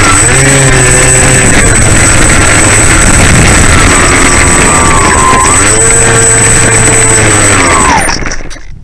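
Bixler 3 model plane's electric motor and propeller running loud over a thick rush of noise, its pitch slowly rising and falling with the throttle, with a thin steady high whine above. The sound cuts off abruptly near the end.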